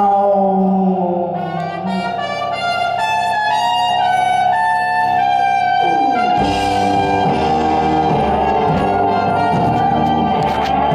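Live band music led by a trumpet playing a stepping melody. The rest of the band, double bass and drums, comes in fully about six seconds in.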